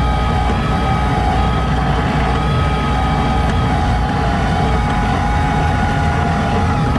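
A heavy diesel machine running steadily under load, a deep rumble with a steady high whine over it.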